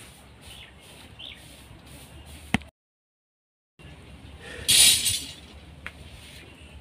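Steel reinforcing bar being handled: a sharp click, then a second of dead silence, then a short scraping rasp a little before five seconds and a light tick after it.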